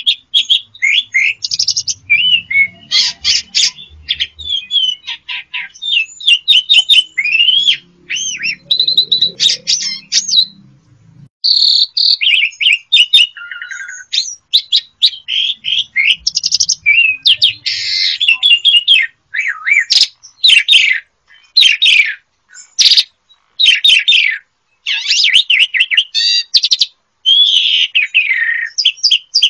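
Asian pied starling (jalak suren) singing a long, varied song of whistles, fast chattering trills and harsh rasping notes, with only brief gaps.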